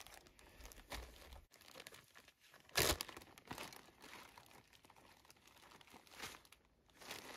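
Clear plastic food bags crinkling and rustling as they are handled, with one sharp, louder crackle about three seconds in.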